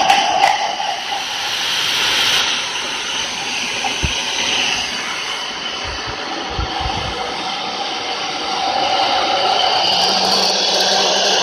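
Small electric fan running steadily, a whirring airy rush, with a plastic cup held over it; a humming note sounds at the start and again near the end, when the cup is on the fan. A few soft knocks come near the middle.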